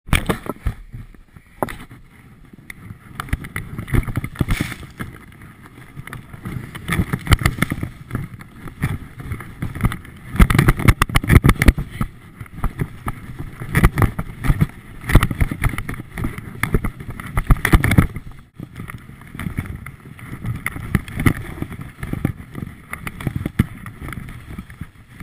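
Wind buffeting the microphone during a fast ski run, with skis scraping and chattering over chopped-up snow. The noise swells and eases in repeated surges, loudest in the middle, with a brief drop a little past the halfway point.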